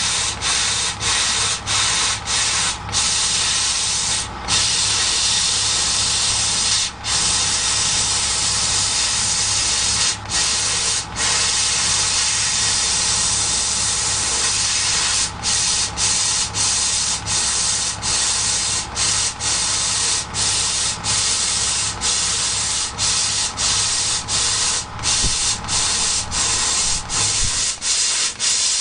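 CO2 laser cutting machine cutting 4 mm wood: a loud steady hiss of air blowing from the cutting head, broken by many brief gaps as the head moves between cuts. A low machine hum runs underneath and cuts out near the end.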